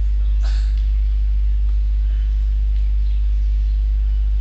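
A steady low hum with faint background noise, and a brief faint sound about half a second in.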